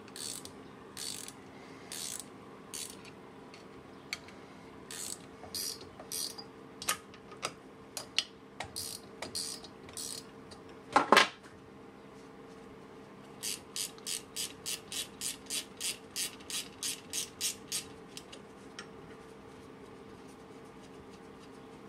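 Ratcheting box wrench clicking as it works a nut on a boat outdrive housing. Scattered clicks and metal taps come first, with one louder clunk about eleven seconds in, then a steady run of ratchet clicks, about four a second, for some five seconds.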